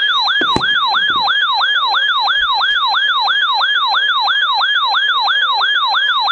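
Weather alert radio's built-in alarm siren sounding for an incoming severe thunderstorm warning. It is a loud electronic wail that sweeps up and down about three times a second, heard through the radio's small speaker.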